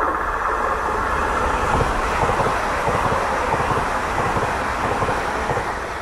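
TCDD HT65000 high-speed electric train passing at speed: a rush of wheel-on-rail and air noise that swells as it goes by, with rapid low thumps as the cars pass, then fades near the end.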